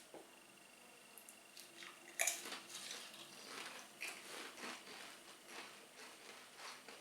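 Pringles potato crisps being bitten and chewed: a sharp snap of a bite about two seconds in, then a run of quick crunching chews.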